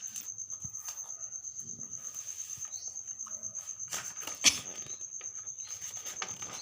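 Steady high-pitched insect trill, pulsing evenly several times a second, with one sharp knock about four and a half seconds in.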